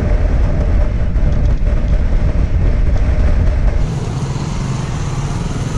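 Yamaha sport motorcycle ridden at road speed, heard from the rider's camera: a steady engine drone under heavy wind rush on the microphone. About four seconds in the wind rush eases as the bike slows.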